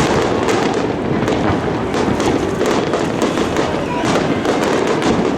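Fireworks display going off continuously, a dense stream of rapid bangs and crackling.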